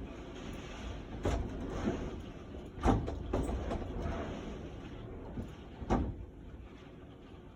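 Gusty typhoon wind with a steady rushing roar, broken by several sharp knocks and rattles. The loudest come about three seconds in and again near six seconds.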